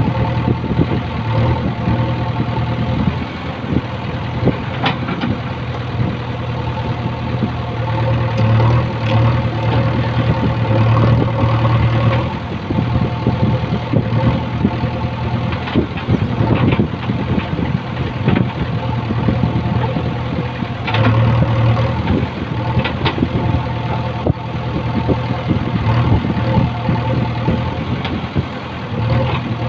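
JCB backhoe loader's diesel engine running steadily while the backhoe digs, its note swelling and easing at intervals as the arm works. Scattered knocks and scrapes of the bucket against earth and stones run through it.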